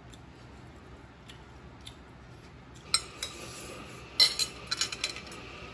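Metal spoon and chopsticks clinking against ceramic plates while eating fried rice: faint ticks at first, a sharp clink about three seconds in, then a quick cluster of clinks a little past four seconds.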